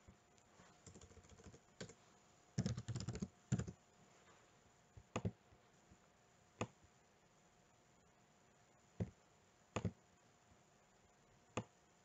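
Computer keyboard typing: a quick run of keystrokes a few seconds in, then several single clicks spaced a second or more apart.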